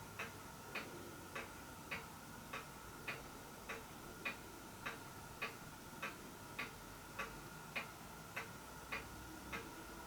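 Faint, steady, regular ticking, a little under two ticks a second, over a faint steady hum.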